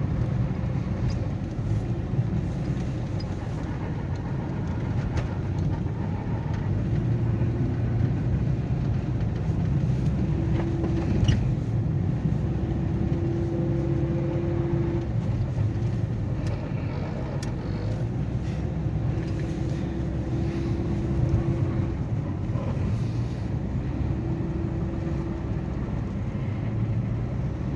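Road noise inside a moving car on a snowy road: a steady low rumble of engine and tires. A faint rubbing hum comes and goes several times, from snow and ice built up at the tire.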